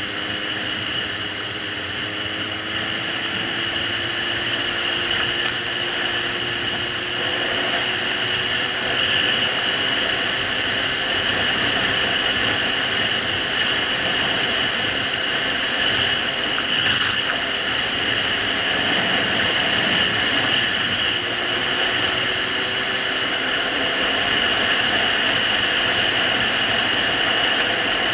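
Suzuki GSR750's inline-four engine running at road speed under a steady rush of wind and road roar. The engine note climbs slowly over the first several seconds, and again briefly later on.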